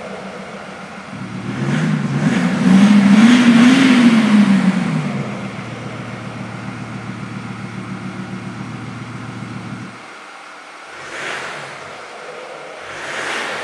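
Mercedes-Benz G-Class exhaust as the engine is revved once, rising to a peak and falling back over about four seconds. It then idles steadily until the note stops about ten seconds in, leaving a rushing noise.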